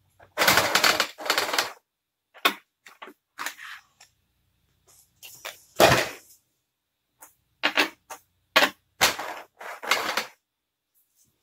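Clear plastic blister-pack packaging crackling and clicking in irregular bursts as an HO scale model well car is worked out of its tray by hand.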